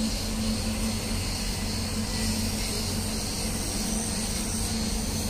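Cicadas singing in an unbroken chorus over a steady low hum.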